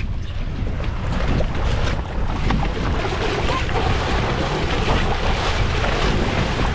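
Steady wind buffeting the microphone over the wash of the sea around a boat.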